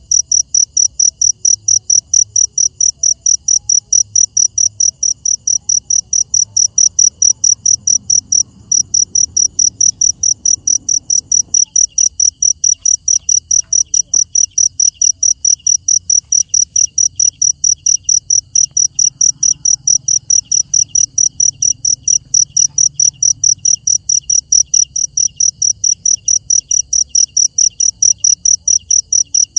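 Night insects chirping in a loud, even, high-pitched pulse of about three chirps a second, with a brief break about eight seconds in. A second, fainter insect starts chirping in quicker, lower pulses about twelve seconds in.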